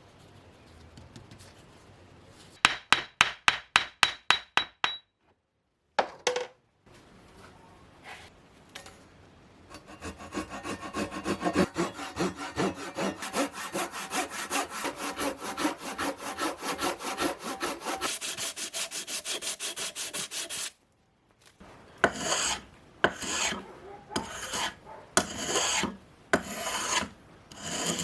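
A hand tool scraping back and forth over wood in a fast, even run of strokes, then in slower separate strokes about a second apart. A quick run of about ten sharp clicks comes first.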